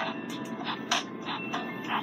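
Background music with sharp percussive hits, about three a second, over a steady low hiss.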